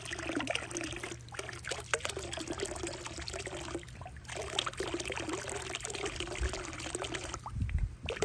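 Water from a homemade solar pool-heater coil pouring out of a hose fitting into a swimming pool: a steady splashing, gurgling trickle, pushed through by the small circulation pump.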